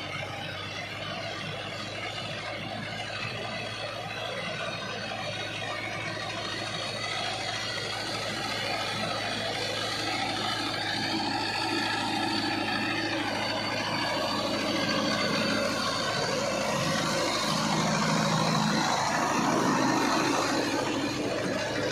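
Mahindra Novo 605 4×4 tractor's diesel engine running steadily under load as it pulls a Jagatjit super seeder through rice stubble, with the seeder's rotor working the soil. The sound grows gradually louder over the second half.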